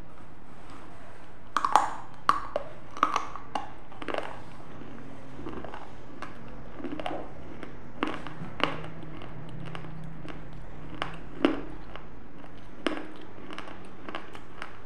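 Food being bitten and chewed right at a clip-on microphone: a cluster of sharp crunches about two seconds in, then single crunches every second or few.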